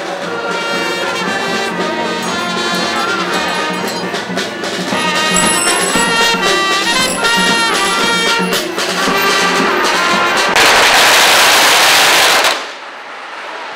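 A marching band with saxophones plays a lively tune. Near the end a string of firecrackers goes off in a dense, very loud crackle for about two seconds, then stops abruptly.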